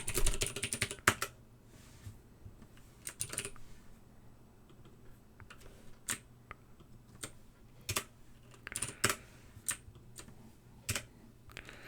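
Typing on a computer keyboard: a quick run of keystrokes at the start, then scattered single key presses.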